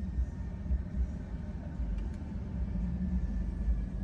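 Steady low rumble of an idling car, with a faint steady whine above it.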